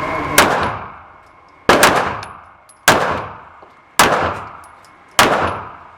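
Five gunshots at a shooting range, evenly spaced about 1.2 seconds apart, each sharp crack followed by an echoing decay.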